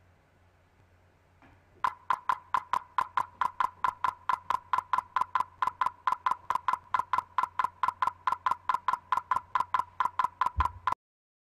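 RuBee (IEEE 1902.1) base station clicking about five times a second, each click a full two-way packet transmission with the wireless tags sealed inside the steel containment vessel. The clicks start about two seconds in and cut off suddenly near the end.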